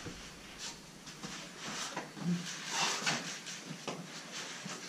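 Irregular scuffs and rustles of people moving and rolling on foam floor mats, with clothing brushing against the mat.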